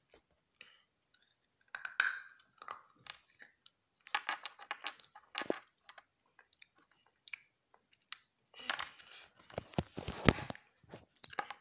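Close handling noise: irregular clicks, taps and rustling in bunches, with quiet gaps between, as small things are moved and rubbed right against the microphone.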